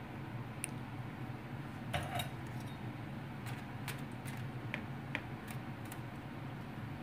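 Light clicks and taps of a spatula and a metal palette knife against a metal baking tray as cream is spread over a sponge sheet, with a cluster about two seconds in and several more later. A steady low hum runs underneath.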